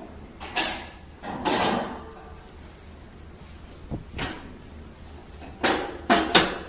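Heavy metal clunks and scrapes as the trimmer of a hydraulic butt-fusion pipe welding machine is set into the machine frame: a handful of separate knocks, with a quick cluster of three near the end.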